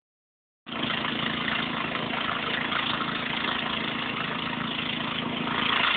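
Snow blower engine running steadily as the machine drives itself forward through deep snow.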